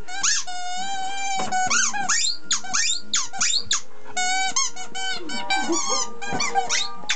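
A dog's squeaky toy ball squeaking over and over as an English Springer Spaniel chews it. The squeaks come in quick succession, some short and bending in pitch, some drawn out for about a second.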